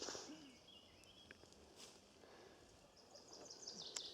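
Quiet woodland background with a small songbird singing: a short high phrase about a second in, then a fast run of repeated high notes near the end. A single sharp click comes just before the end.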